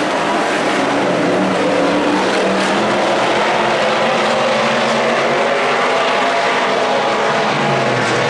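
A pack of IMCA Stock Cars racing, their V8 engines running hard together in a loud, steady drone of several overlapping engine notes.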